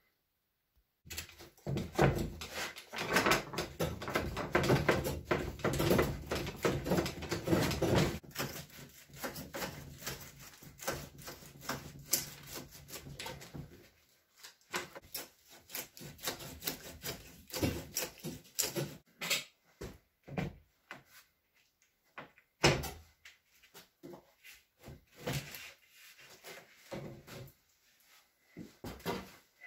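Metal tractor cab door and its glass pane being worked apart by hand: dense rattling and knocking for about the first half, then scattered separate knocks and clunks as the glass is lifted out of the bare frame.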